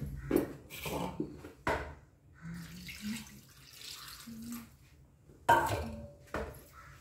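Water poured from a small steel bowl into a steel pot of creamy mixture, splashing for a couple of seconds, among knocks and clinks of the steel vessels; the loudest is a sharp knock about five and a half seconds in.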